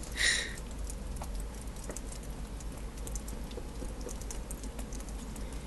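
Faint, irregular crunching clicks of footsteps in snow, with one sharp knock at the very start.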